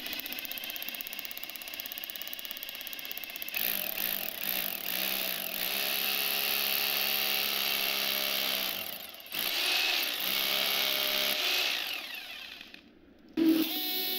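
Electric drill boring a 7 mm pilot hole into a concrete curb, running steadily with the bit grinding into the concrete. It stops briefly about nine seconds in, starts again, and stops about a second before the end.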